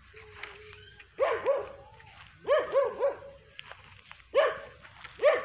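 A dog barking repeatedly in quick bursts of two or three barks.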